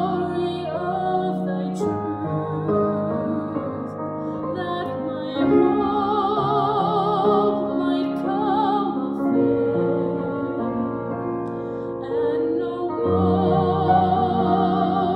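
A woman singing a slow solo with wide vibrato, over piano accompaniment.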